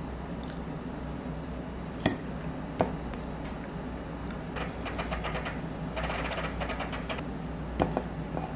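Metal fork clicking against a plate: a sharp tap about two seconds in, another just after, then two quick taps near the end. In between, chewing of juicy tomato slices, over a steady low room hum.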